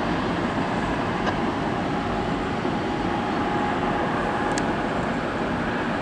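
Steady distant rumble of rail and steel-mill activity, with a faint steady tone through it and a short light tick about two-thirds of the way in.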